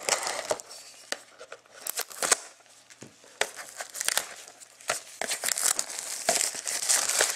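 Plastic shrink-wrap on a trading card hobby box being slit with a knife and torn off. It crinkles and crackles with many sharp clicks, loudest just at the start and densest over the last couple of seconds.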